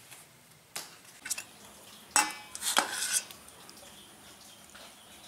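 A few clinks of a metal spoon against metal dishes, the loudest about two seconds in with a brief ring.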